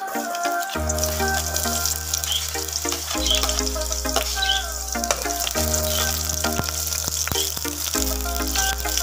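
Minced garlic sizzling in hot oil in a stainless steel pot, a steady high hiss that starts as the garlic goes in, over background music with a held bass line.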